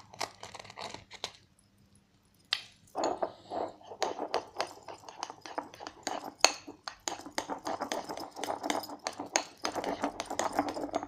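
Stirring a shaving-foam slime mixture in a bowl: quick, irregular wet clicks and clinks of the utensil against the bowl, pausing briefly about two seconds in, then going on steadily.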